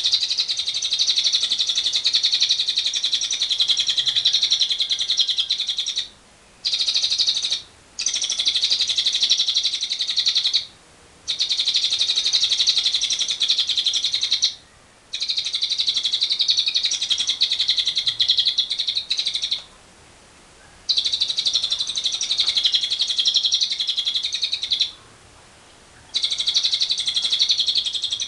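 Lovebird ngekek: long bouts of rapid, high-pitched chattering trill, each running several seconds and broken by short pauses, about seven bouts in all.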